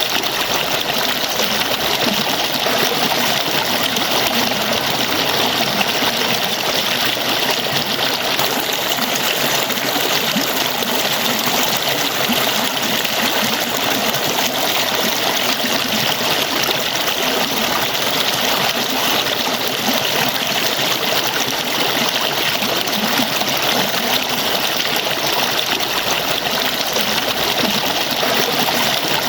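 Falling water splashing steadily, one even rushing noise that never pauses or changes.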